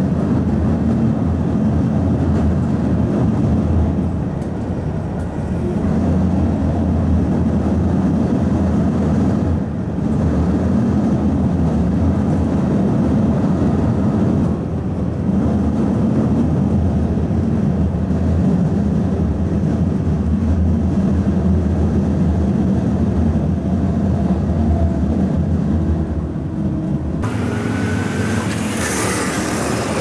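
Steady low rumble of an electric train running on the JR Nara Line, heard from inside the train. Near the end it gives way to brighter road traffic noise as a large truck passes close by.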